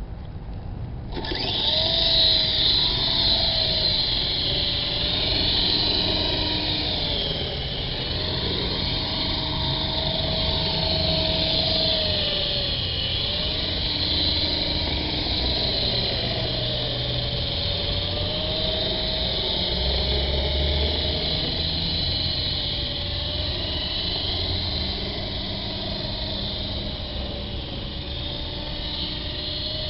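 Electric motors and rotors of a QS 8005 radio-controlled helicopter whining. The sound starts suddenly about a second in, and its pitch rises and falls over and over.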